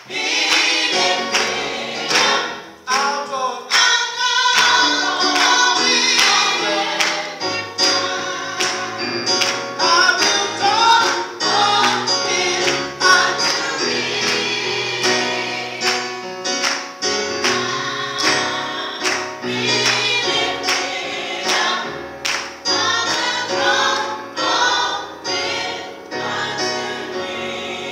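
Gospel choir of women singing, with keyboard accompaniment holding sustained low notes.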